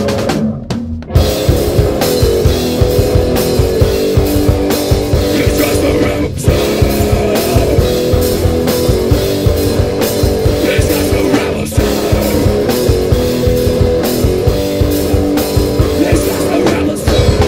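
Rock band playing live: drum kit, bass guitar and electric guitar together. The band drops out briefly just after the start, then comes back in with a loud hit and plays on.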